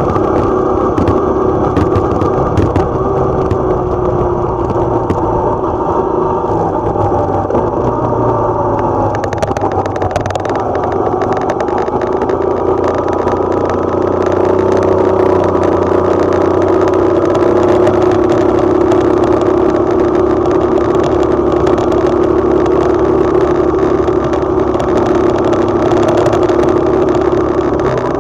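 Small motorcycle engine running at road speed, its pitch dipping and then rising about ten seconds in, with rushing wind and road noise growing louder from then on.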